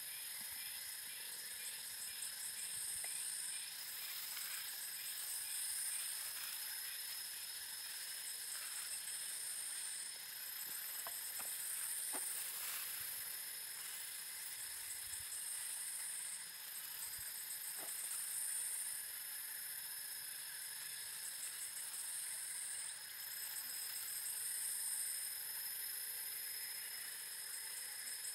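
Faint outdoor background with no speech: a steady high-pitched hiss whose upper part swells and drops away every few seconds, with a few soft clicks.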